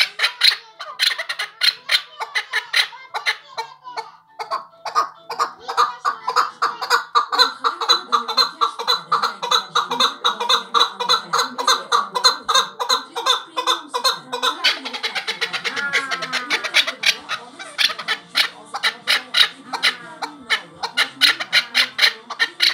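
Male chukar partridge calling nonstop: a fast run of repeated clucking notes that builds into a dense, even rapid series in the middle, with a few rising notes about fifteen seconds in.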